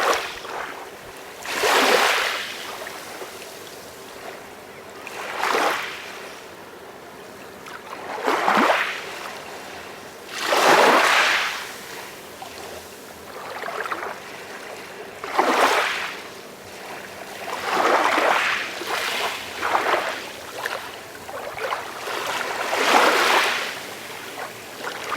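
Calm sea waves washing in, one soft swell of surf about every three seconds.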